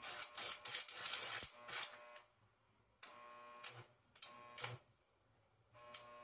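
Stick-welding arc crackling and sputtering from a Miller Thunderbolt 225 welder. It cuts out about two seconds in and again near five seconds, with short bursts between, as the arc stops and is struck again.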